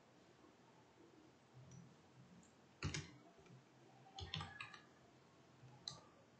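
Faint computer keyboard keystrokes against near silence: one click about three seconds in, a quick run of keys around four and a half seconds, and a last one near the end.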